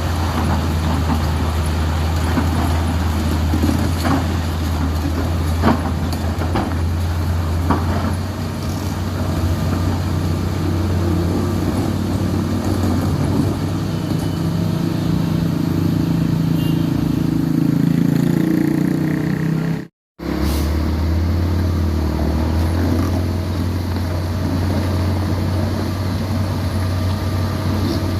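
Heavy diesel engines running under load: a deep steady drone, with a higher note building up partway through. The sound cuts out for a moment about two-thirds of the way in, then the drone carries on.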